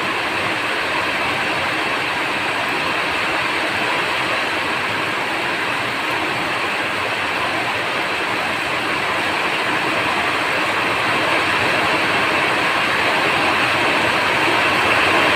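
Steady rain, an even hiss with no separate drops standing out, growing a little louder toward the end.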